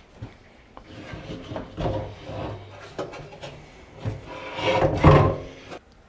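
Stainless steel sink being lowered into its cutout in an ash butcher block countertop and shifted into place: irregular knocks and scraping of metal against wood, loudest about five seconds in.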